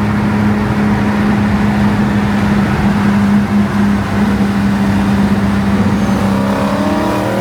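Steady engine drone and road noise at highway speed inside a kei truck's cabin. Near the end a Dodge Challenger Scat Pack's 6.4-litre Hemi V8 alongside accelerates, its pitch rising, and it is really loud.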